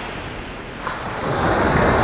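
Ocean waves breaking on a beach. The surf is quieter for the first second, then a wave swells up loudly about a second in. Wind hisses over the microphone throughout.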